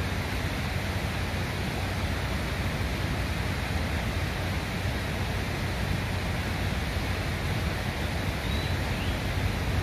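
Steady outdoor rushing noise with a strong low rumble, even throughout.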